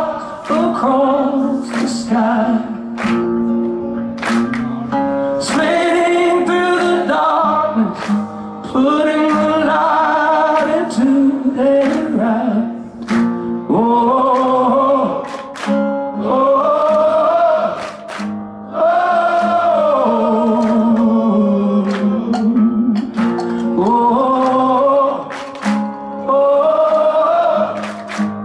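Male lead vocalist singing live into a microphone, holding long notes with a wavering vibrato over sustained low chords from the band.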